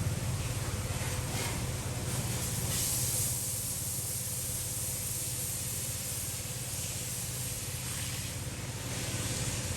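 Pressure washer spraying a motorcycle at a service station: a steady hiss of spray that swells and eases, over the constant hum of the washer's motor.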